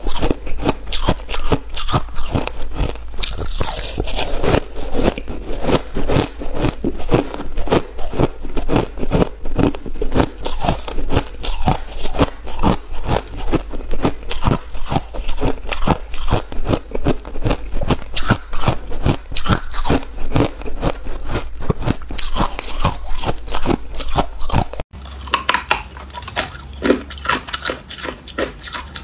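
A person biting and chewing hard ice close to the microphone: loud, rapid crunches several times a second. Near the end the crunching cuts off sharply and gives way to quieter, sparser clicks.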